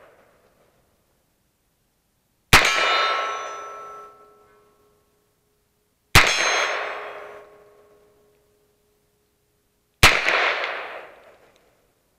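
Three revolver shots from a Japanese Type 26 revolver, about three and a half seconds apart, each a sharp crack that dies away over a second or so. After the first two shots a struck steel target rings on with a clear tone.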